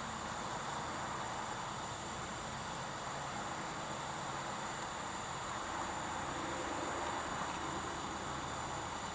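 Steady hiss of a small butane soldering torch burning while wires are soldered, even and unchanging throughout.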